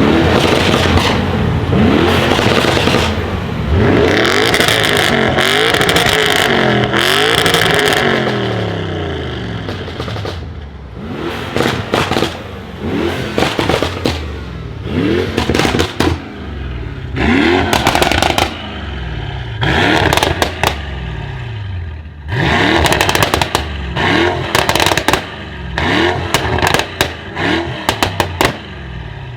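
Modified Mercedes-AMG E63 S twin-turbo V8 revving hard: a long, loud run of revs, then a series of short rev blips about every one to two seconds. Each blip is followed by sharp exhaust crackles and pops, with a quick string of pops near the end.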